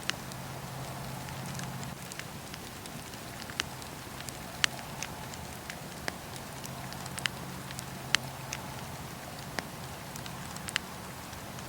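Wood fire burning in a fireplace: steady low rumble and hiss with irregular sharp crackles and pops, about a dozen in all, a couple standing out louder.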